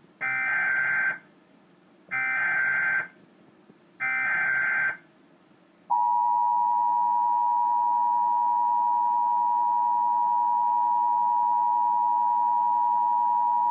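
Emergency Alert System header: three bursts of warbling SAME digital data tones, each about a second long with a second between them, then the EAS attention signal, a steady two-tone alert (853 and 960 Hz) starting about six seconds in. Together they open a statewide Required Monthly Test.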